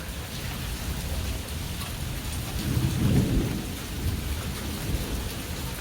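Steady rain falling during a thunderstorm, with a low rumble of thunder that swells and fades about three seconds in.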